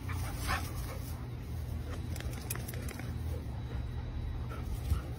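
Two dogs playing rough, chasing and wrestling, with a few short, faint yips and barks over a low steady rumble.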